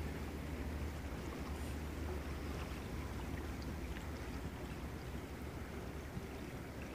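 Steady rushing of a flowing river, with a constant low rumble underneath.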